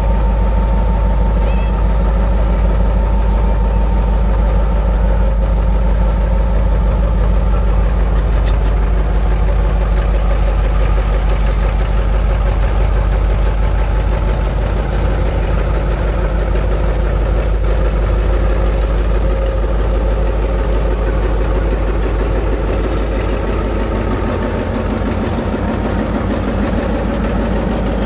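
Diesel locomotive's engine running with a loud, steady low drone as it slowly hauls a long container freight train past.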